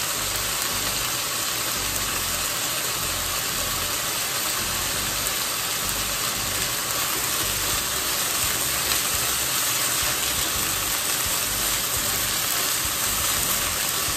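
Chicken thigh pieces sizzling steadily in a nonstick frying pan as they are stirred, cooking in their own fat with a little water. The hiss is even and unbroken, over a low steady hum.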